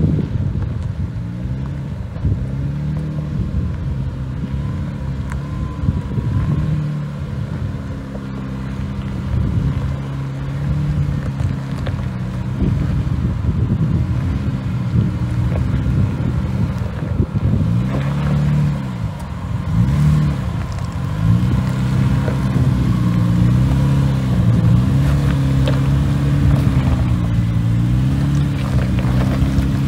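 Jeep Wrangler JKU's V6 engine pulling up a steep rock slope, its note rising and falling with the throttle, with a few sharp crackles of tyres on rock.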